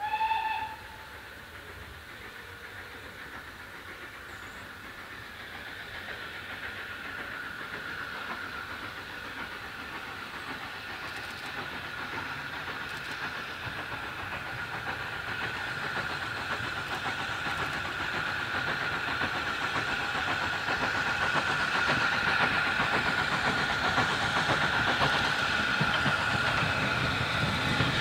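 SER O1 Class steam locomotive No 65 gives a short whistle toot right at the start, then comes on through and out of the tunnel hauling its carriages. Its sound, a steady rushing noise with a running rumble, grows steadily louder as it approaches.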